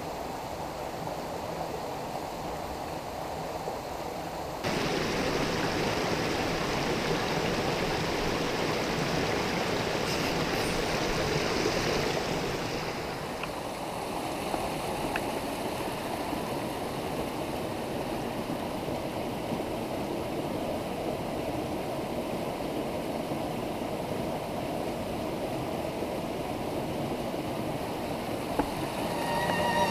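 A small rocky mountain stream running over stones: a steady rush of water. It steps up abruptly in level about four and a half seconds in.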